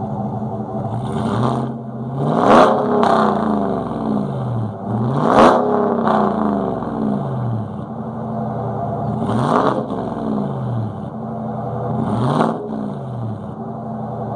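2015 Chevy Silverado's 5.3L Ecotec3 V8 running through Kooks long-tube headers and a Jones JT3030 turbine muffler, revved in about six quick blips from idle, each rising sharply in pitch and falling back.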